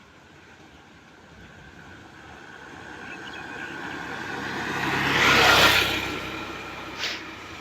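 A motor vehicle passes by, growing steadily louder, loudest about five and a half seconds in, then fading away. A short sharp click comes near the end.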